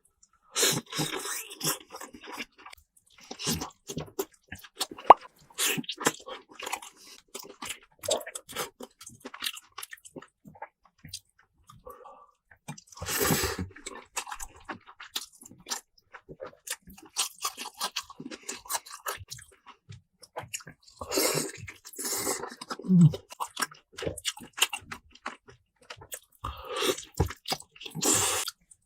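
Close-miked eating: irregular chewing, crunching and wet mouth sounds as someone takes bites and chews.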